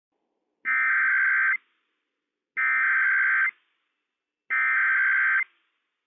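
Emergency Alert System SAME header from NOAA Weather Radio: three identical bursts of warbling digital data tones, each about a second long with about a second of silence between. These bursts are the coded header that opens an alert, here a Child Abduction Emergency.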